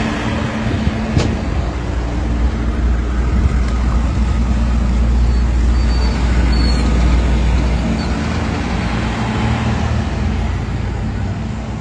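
Ice cream truck's engine running as the truck pulls away, a steady low rumble that eases off near the end.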